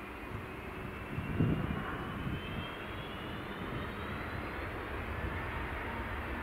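Boeing 757 jet engines running, a thin whine rising slowly in pitch over a steady low rumble, with a brief low thump about a second and a half in.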